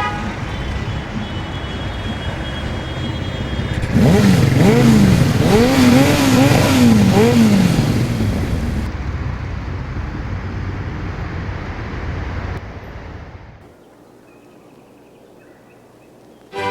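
City street traffic noise, with a siren wailing up and down in pitch for a few seconds partway through; the traffic then fades down to a low background near the end.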